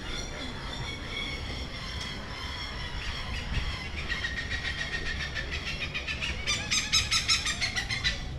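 Birds calling: steady high whistling notes, then a loud, rapid run of repeated calls, about seven a second, over the last two seconds.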